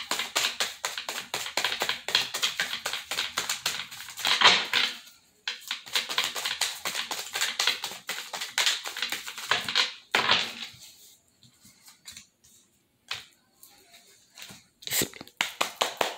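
A deck of cards being shuffled by hand, a fast run of papery clicks with two louder swells. About ten seconds in it drops to a few scattered taps as cards are set down on the table.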